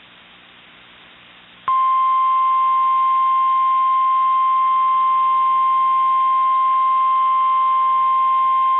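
NOAA Weather Radio 1050 Hz warning alarm tone: one loud, steady, unbroken high tone that starts suddenly about two seconds in, after faint radio hiss. It is the alert signal that comes before a warning broadcast, here a tornado warning.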